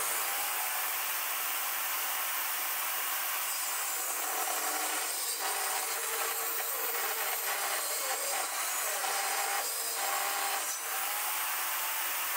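DeWalt jobsite table saw running steadily while ripping a length of timber along the grain, the blade under load as the board is pushed through.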